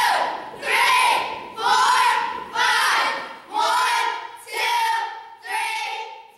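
A girls' cheer squad chanting a cheer in unison, shouting a word together about once a second with short breaks between.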